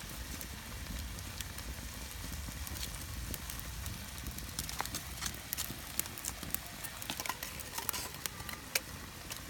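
Wood fire crackling in the firebox of a concrete-brick rocket stove, with irregular sharp pops and snaps over a low rumble.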